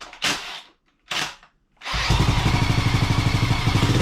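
Honda ATC200X single-cylinder four-stroke engine turned over twice in short bursts, then catching about two seconds in and running steadily with a rapid even beat: the long-unused, previously flooded engine starting.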